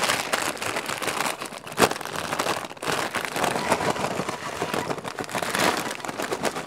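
Doritos tortilla chips poured from a crinkling chip bag into a ceramic baking dish, rattling and crackling as they land and are spread by a gloved hand, with one sharper crack about two seconds in.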